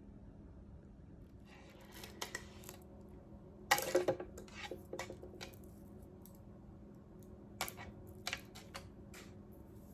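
Strands of small waist beads being handled and untied, the beads clicking and rustling together in scattered bursts, loudest a little under 4 seconds in, with a few separate sharp clicks near the end.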